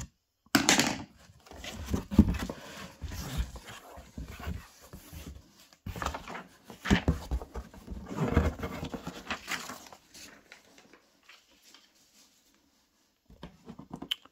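A cardboard shipping box being opened by hand: scissors cut the packing tape, the flaps are scraped open, and packing paper rustles in irregular bursts, then a lull near the end.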